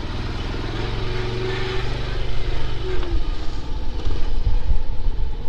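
Small 110 cc cub-style motorcycle engine running at low speed, steady at first, then louder and rougher with low rumbling from about three seconds in.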